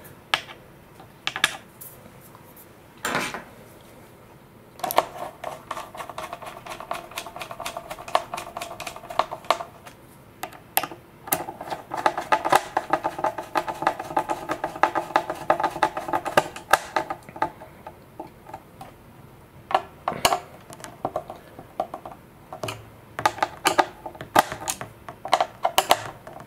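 Small screwdriver turning metal wing bolts into a carbon-fibre glider's wing and fuselage: two long runs of rapid clicking as the screws are driven, with scattered single taps and knocks of handling in between.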